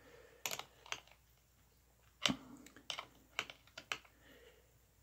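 A 13 mm wrench clicking against a battery terminal nut as it is fitted and worked to snug the cable lug down: about eight sharp metal clicks at irregular intervals.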